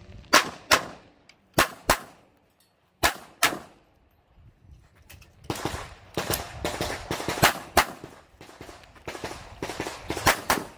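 Pistol shots fired in quick pairs, three pairs in the first three and a half seconds, then a denser run of shots from about five and a half seconds in.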